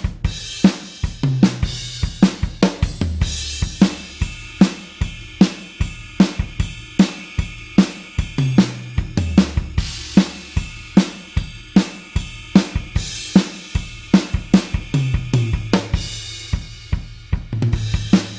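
Rock drum kit playing a steady beat of kick, snare, hi-hat and cymbals, about three to four strokes a second, with low held notes underneath.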